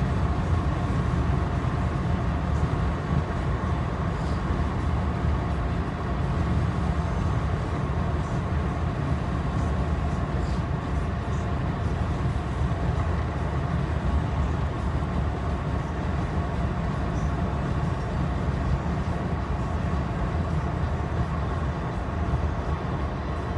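Steady low road rumble of a moving car heard from inside the cabin: tyre and engine noise with a faint steady hum over it.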